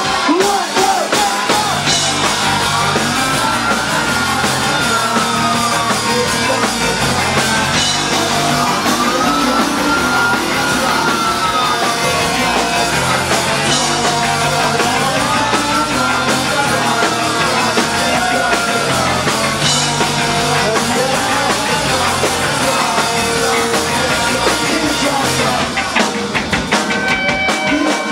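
Rock band playing live and loud: drum kit, electric guitars and bass, with a high tone that swoops up and back down every few seconds.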